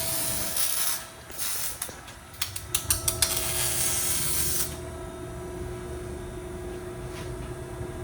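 Workshop noise: a steady hum under a hiss, with a quick run of sharp mechanical clicks a few seconds in.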